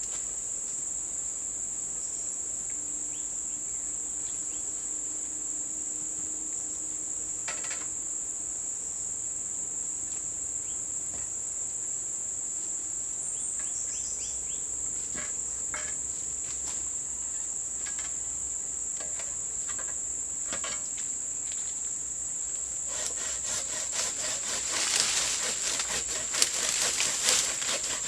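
Steady high-pitched drone of forest insects such as crickets, with scattered clicks and knocks. In the last few seconds, louder rustling and scraping comes in over it.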